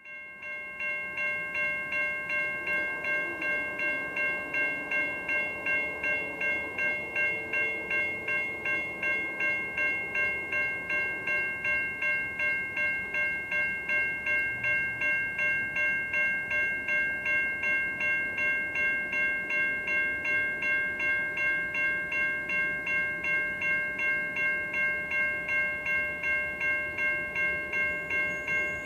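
Railroad grade-crossing bell ringing steadily, about two strikes a second, warning of an approaching train.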